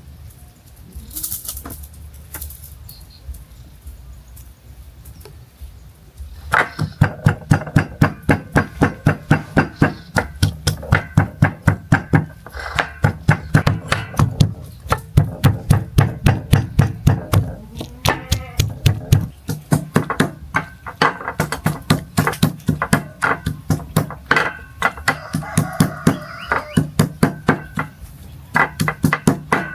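Rapid, even chopping with a cleaver on a wooden board, about four or five strokes a second in long runs with brief pauses, starting about six seconds in.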